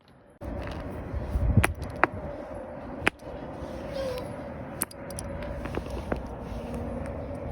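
Handling noise starting abruptly, with a few sharp clicks and a couple of dull knocks.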